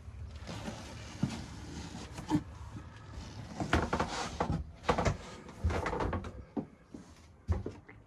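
Irregular knocks, clicks and rustling inside a small wooden boat cabin, from someone moving about and handling the camera, with the loudest knocks near the middle.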